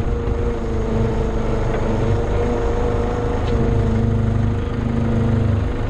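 Vehicle engine running steadily while towing a grain auger, its hum getting a little louder for a couple of seconds near the end.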